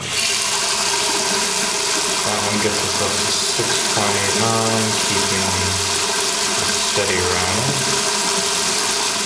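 Water running from a two-handle bathroom faucet with its lever opened only part way, a thin stream splashing into the ceramic sink basin at the drain. It starts suddenly and then runs steady, with a low hum coming and going.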